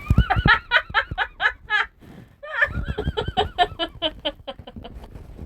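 A person laughing in two runs of quick, high-pitched giggles, with a short pause between them.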